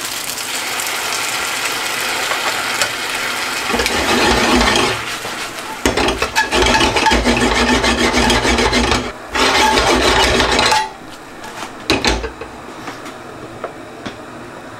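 Spaghetti being tossed and stirred in a frying pan with pasta water, a utensil scraping and rubbing against the pan in three bursts over a steady sizzle. The sound drops away about eleven seconds in, leaving a couple of short clicks.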